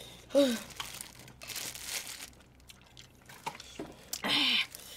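Disposable plastic gloves crinkling and rustling as gloved hands handle and pull apart chicken feet.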